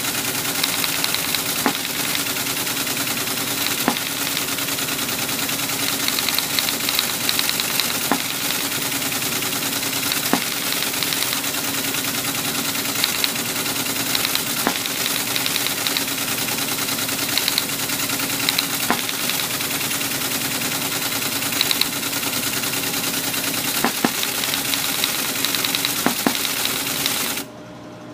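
Teletype Model 33 ASR printing continuously: a steady motor hum under the rapid clatter of its typing mechanism, with occasional sharper knocks as lines end. It is printing out an assembled program listing, and the clatter stops abruptly near the end as the listing finishes.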